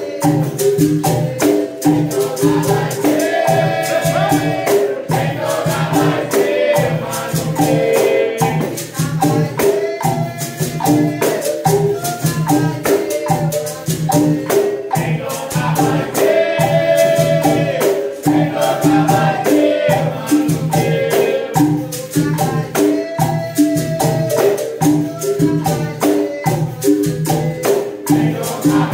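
Capoeira Angola roda music: berimbaus repeat a steady twanging rhythm, backed by a pandeiro and an atabaque drum, while voices sing over them.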